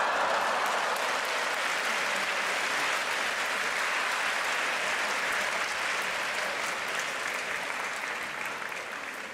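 Audience applauding, a steady spread of clapping that eases off slightly near the end.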